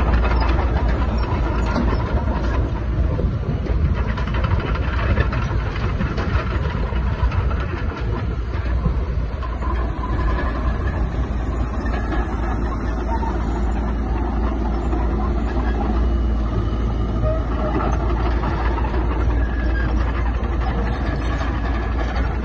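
Heavy diesel earthmoving machinery working: a loud, steady engine drone with a continuous mechanical rattle.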